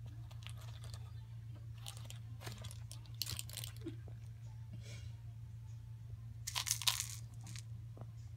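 Cat chewing and tearing at blades of cat grass: a run of short, irregular crunches, the loudest cluster about seven seconds in, over a steady low hum.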